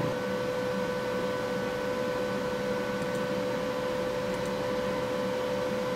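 Steady hum of a running Xerox Nuvera production printer, with a high whine held over a broad hiss. A couple of faint mouse clicks come through about three and four and a half seconds in.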